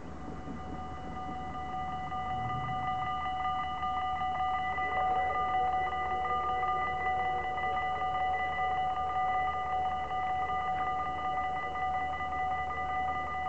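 Electronic warning bell of a Dutch automatic half-barrier level crossing ringing in rapid, even strokes from the moment the red lights start flashing, while the half barriers lower: the crossing is closing for an approaching train.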